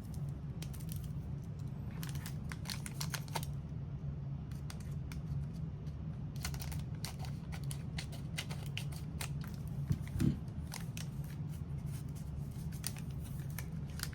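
Packaging of a trading card box being torn open and crinkled by hand, a run of sharp crackles and snaps that grows busier about halfway through, over a steady low hum.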